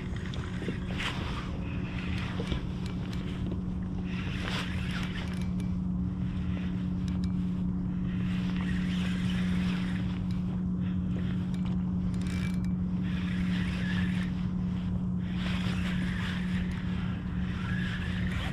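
Spinning reel being cranked to retrieve a lure, its gears whirring in uneven spells, over a steady low hum.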